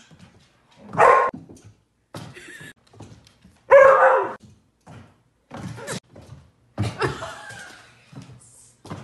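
A dog barking in several separate short barks, the loudest two about one and four seconds in.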